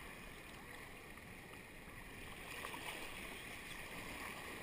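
Shallow surf washing in and swirling, a steady rush of water that grows louder in the second half.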